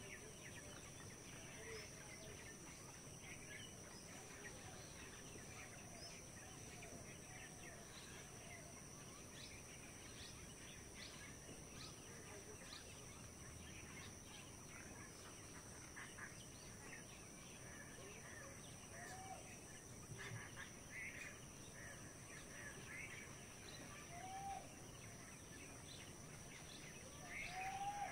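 Faint rural outdoor ambience with scattered short bird chirps throughout over a steady high-pitched drone, and a few short rising-then-falling bird calls in the second half, the loudest near the end.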